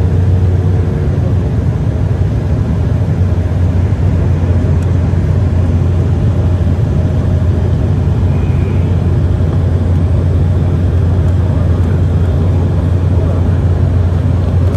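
Embraer E190 cabin noise in the climb just after takeoff: its GE CF34 turbofans at climb power and the rush of air, a loud, steady drone with a strong low hum.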